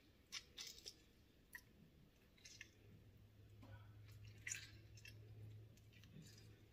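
Faint, wet squishing and small sharp clicks of a lemon half being squeezed by hand, with a low steady hum coming in about midway.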